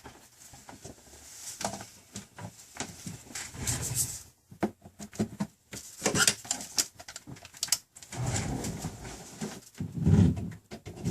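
Scattered clicks, taps and rustles of a tablet and tools being handled on a workbench, with a few low muffled bumps in the second half.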